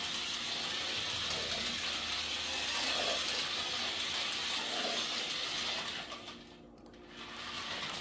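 Small battery-powered electric motor and gearbox of an Adventure Force mini RC truck whirring as it drives across a hard floor. It stops about six seconds in and starts again near the end.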